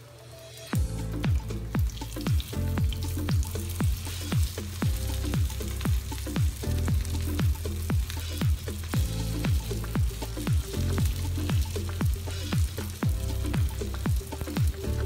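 Electronic background music with a steady kick-drum beat and bass comes in under a second in, over the sizzle of lumpiang shanghai spring rolls shallow-frying in hot oil in a pan.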